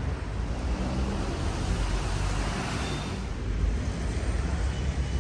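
Street traffic noise, steady, with a vehicle swelling past about two to three seconds in.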